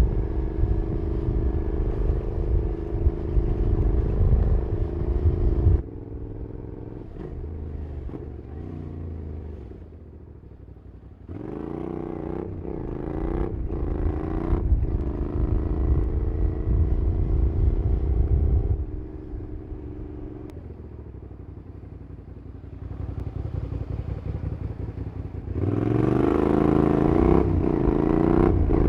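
2008 Suzuki SV650SA's 645 cc V-twin with a Cobra SC3 exhaust, revving up and down through the gears while riding, pitch rising and falling. Loudness drops sharply about six seconds in, climbs back near the middle, falls again, then jumps up near the end.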